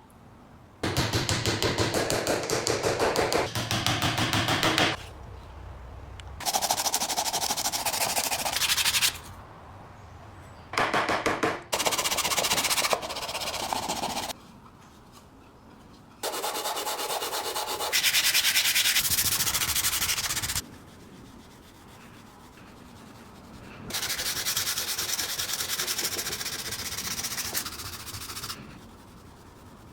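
Abrasive sanding for rust removal on the grinder's metal parts. It comes in about six bursts of two to five seconds, each starting and stopping abruptly, with quieter pauses between them.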